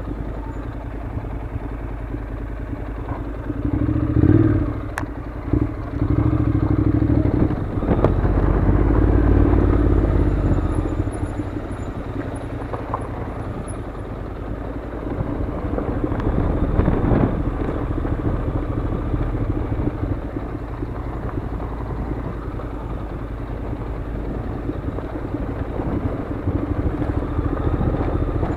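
Honda NC700's parallel-twin engine running at low speed on a loose gravel track, with the noise of the ride around it. It swells louder a few times, about four seconds in, from about six to ten seconds, and again around seventeen seconds.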